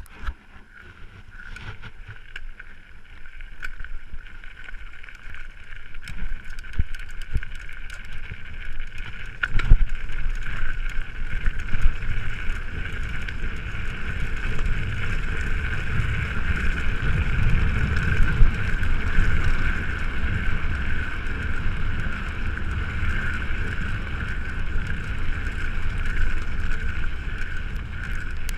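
Mountain bike running fast downhill over a rough dirt trail: the rumble and rattle of tyres and frame over the ground under heavy wind noise on the microphone, building as speed picks up over the first ten seconds, with scattered clicks and a sharp knock about ten seconds in.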